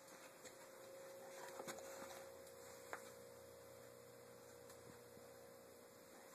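Near silence with a faint steady hum, and one light tick about three seconds in.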